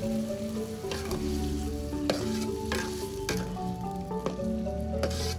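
Food sizzling in hot oil in a pan and being stirred, with a scrape every second or so. Soft background music plays underneath.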